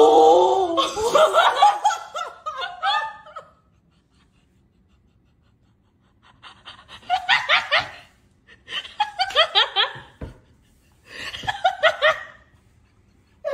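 A person laughing: a long fit of laughter for the first three seconds or so, then quiet, then three short bursts of laughter about two seconds apart.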